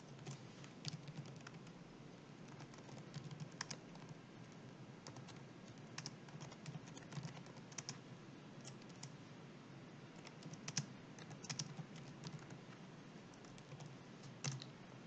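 Typing on a computer keyboard: faint keystrokes at an irregular pace, with a few louder key strikes, one of them near the end.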